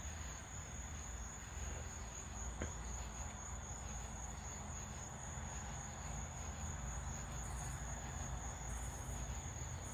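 Steady chorus of crickets: one continuous high-pitched trill that holds without a break.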